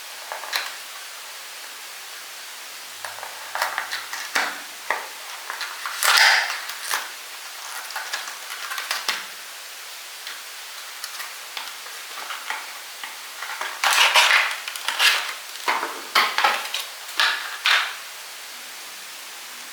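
Handling noise from unboxing a pair of wired earphones: irregular clicks, rattles and rustles of the packaging and earphones, in two busy spells with a short lull between, over a steady hiss.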